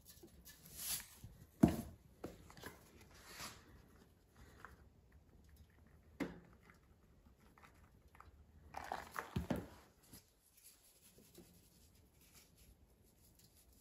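Seasoning containers handled over an air fryer basket. Salt hisses briefly as it pours from a canister, and a sharp knock about two seconds in, the loudest sound, is a container set down on the stone countertop. Around nine seconds in comes a short run of rattles from a spice shaker being shaken, with faint small knocks between.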